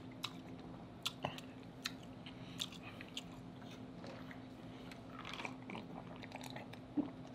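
Close-miked wet chewing of king crab meat: soft mouth clicks and smacks spaced about a second apart, over a faint steady low hum.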